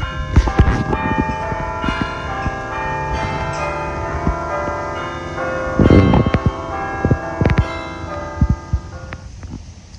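Bells ringing: many struck, overlapping tones that keep sounding, with new strikes throughout and a few sharp knocks around the middle.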